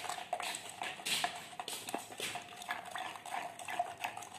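Enamel paint thinned with turpentine being stirred in a small metal pot, the stirrer scraping and knocking against the pot's sides in uneven strokes.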